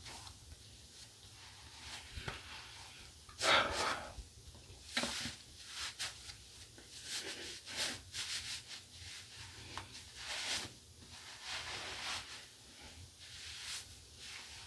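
White cotton terry towel rubbed over the face and bald scalp: soft, irregular brushing strokes, the loudest about three and a half seconds in.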